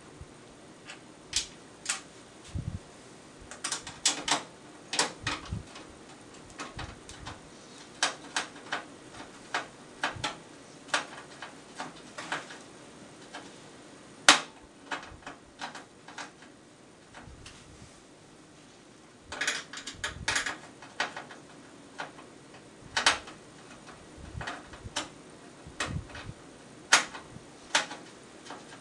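Irregular clicks and taps of a screwdriver and screws against a metal PC case as the motherboard screws are driven in. One sharper knock about halfway through.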